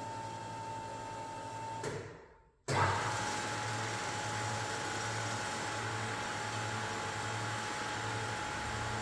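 Bomar Ergonomic 320.250 DG bandsaw machine running steadily, with a constant high whine over a low hum that swells about once a second. The sound drops out for a moment about two seconds in and comes straight back.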